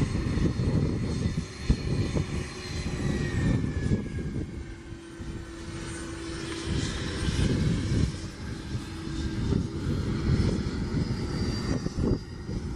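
Twin-engine business jet's turbofan engines running as it rolls along the runway: a deep, uneven rumble under a high whine that slides slowly down in pitch during the first few seconds.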